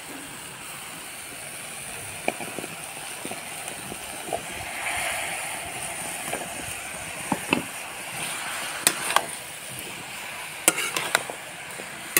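Eggplant and potato pieces sizzling in hot oil in an iron kadhai, with a louder swell of sizzling about five seconds in as the raw potato goes in. A metal spatula scrapes and knocks against the pan a few times, mostly in the second half.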